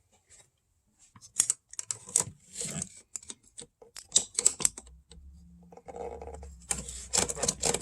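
Small hard plastic clicks and rattles of a PCV hose connection being worked loose by hand on an engine. The clicks come scattered at first and run together densely near the end, with a faint low hum joining about five seconds in.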